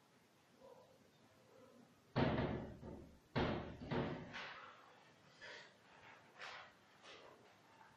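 Chalk knocking and scraping on a blackboard as a word is written: two loud knocks about two and three and a half seconds in, then a run of fainter strokes.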